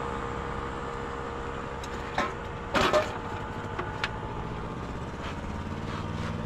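A few sharp chopping knocks from a knife cutting fish, the loudest a quick cluster about three seconds in, over the steady hum of a vehicle engine running nearby.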